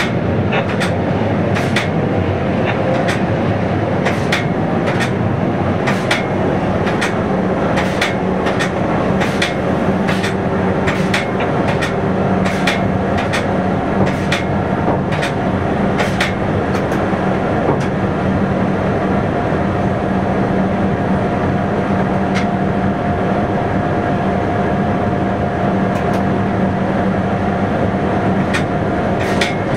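Local train running along the track, heard from inside the driver's cab: a steady running noise and hum, with wheels clicking over rail joints, the clicks coming often at first and thinning out in the second half.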